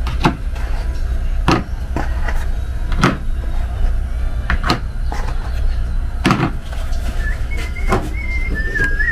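Chicken eggs being set one by one into a plastic egg tray: about six light clicks, each a shell knocking against the plastic, over a steady low hum. A faint wavering whistle comes in near the end.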